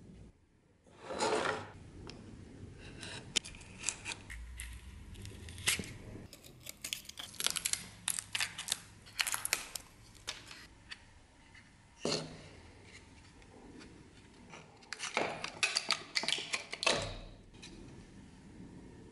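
An old wooden dagger scabbard being stripped by hand: its yellow bands and metal fittings are pulled off and its two wooden halves split apart. This comes through as several bursts of tearing and scraping, with sharp clicks and light knocks between them.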